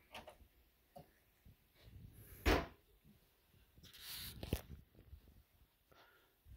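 A cabinet door shuts with a sharp knock about two and a half seconds in. A short rustle and a second, softer knock follow about two seconds later.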